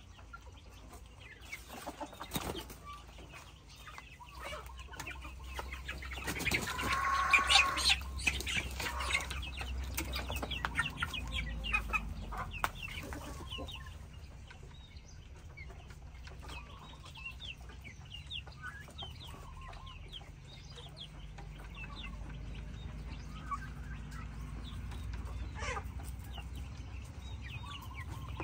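Native chickens clucking and cheeping in short, high calls, with a louder squawking call about seven seconds in.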